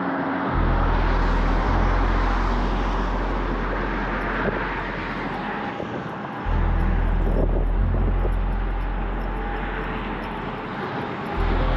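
Background ambient music: deep sustained bass notes that change about every five to six seconds, under a steady airy hiss.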